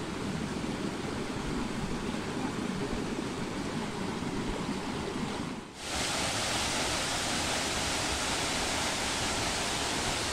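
Running water of a forest stream, then, after a sudden break a little over halfway through, the steady, brighter rush of a small waterfall pouring into a pool.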